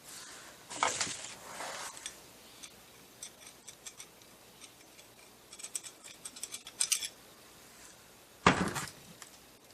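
Steel transmission parts being handled: light metallic clinks and scrapes, with a run of quick small ticks a little past halfway and a louder scrape near the end.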